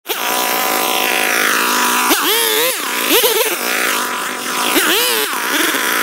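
Gas chainsaw running at high revs as it cuts into a standing tree's trunk, its engine pitch dipping and rising several times from about two seconds in.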